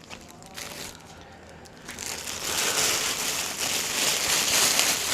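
Plastic packaging being crinkled and rustled by hand. There are a few light handling clicks at first, then a steady, louder crinkling from about two seconds in.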